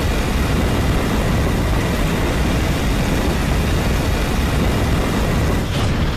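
Flamethrower sound effect: a loud, steady rush of flame, heavy in the low end, that begins to die away near the end.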